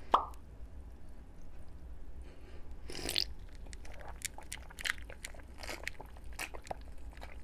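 Close-miked sipping and swallowing of Diet Dr Pepper from a glass. A short slurp comes right at the start, a louder gulp about three seconds in, and wet mouth and throat clicks between them.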